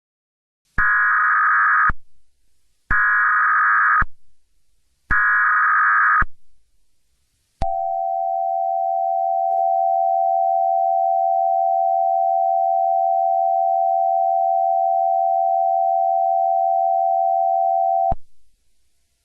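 Emergency Alert System tones: three bursts of data tones (the SAME header), each about a second long with a second's gap between them, then one long steady attention tone lasting about ten seconds that cuts off suddenly. They signal that an emergency message is about to be read.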